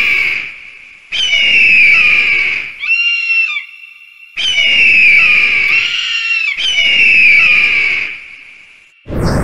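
Bird-of-prey screech sound effect: long harsh screams, each falling slightly in pitch, repeated about four times, with a shorter, steadier call between the first two. A low thump near the end.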